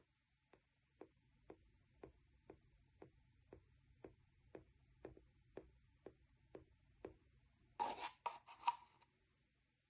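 Quiet room with faint, very regular ticks, about two a second, and a brief rustle or scrape about eight seconds in.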